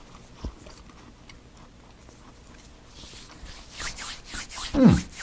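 Hands rubbing together close to a clip-on microphone: a quick, even swishing, about three or four strokes a second, that starts about three seconds in. Near the end a voice gives one falling "mmm", the loudest sound here.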